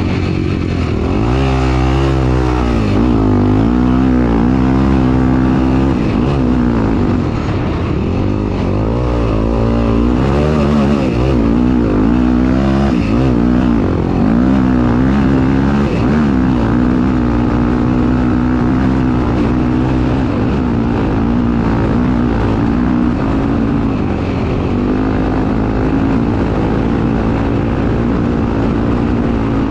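Single-cylinder Honda Tornado 250 dirt bike engine racing, its pitch rising and falling again and again as the throttle is opened and closed and the gears change.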